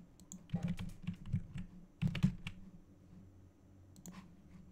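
Computer keyboard keys being tapped in short bursts of clicks, two main clusters with a few more taps near the end.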